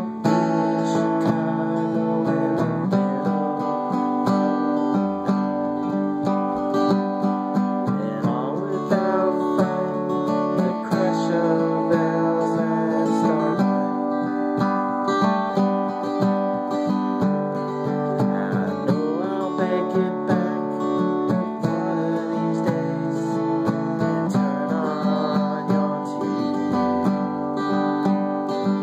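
Acoustic guitar strummed steadily while a harmonica in a neck rack plays long held notes over it, an instrumental passage without singing.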